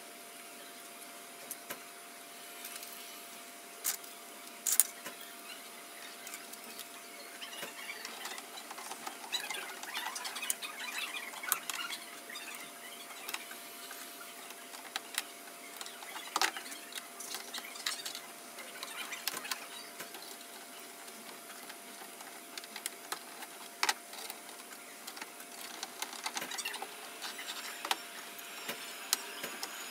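3D-printed plastic model car parts being handled and fitted together by hand: scattered clicks, taps and scraping of plastic, with a few sharper clicks, over a faint steady hum.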